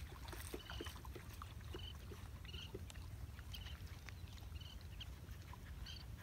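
Faint splashing and sloshing of dogs wading in a shallow muddy pool, over a steady low rumble, with about half a dozen short high chirps scattered through.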